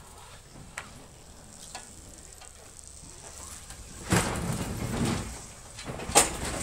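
Race car rolling backward off a flatbed trailer's ramps. After a quiet stretch there is a rumbling scrape of tyres and ramps about four seconds in, lasting around a second, then a sharp clunk near the end as the car comes off the ramps.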